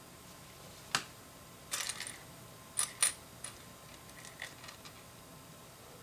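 Small plastic LEGO pieces clicking and clattering as they are handled and picked through. There is a sharp click about a second in, a short rattle, two sharp clicks around three seconds in, then a few fainter ticks.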